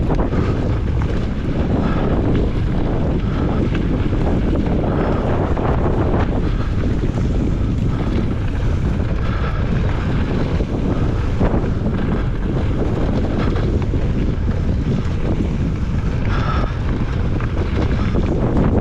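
Strong wind buffeting the microphone as a dense, steady low rumble, with faint scattered knocks from the mountain bike running over rough ground.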